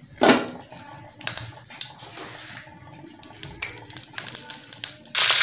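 Metal ladle stirring and scraping melting ghee in a metal pot: scattered clinks and scrapes, with one louder scrape about a third of a second in. Just before the end, a steady sizzle of hot ghee starts suddenly.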